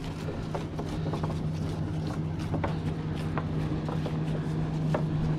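A boat's motor running with a steady low drone at one pitch, slowly growing louder, with scattered light clicks and knocks over it.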